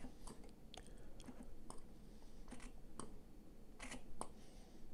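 Faint scattered clicks of a plastic foaming pump bottle being pressed, with a soft hiss twice as the foam is pushed out.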